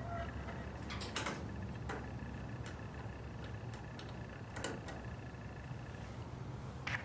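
A few light, sharp clicks and taps, spread irregularly, from hand tools and metal parts as the motorcycle's headlight trim ring and housing are worked loose. They sit over a steady low hum.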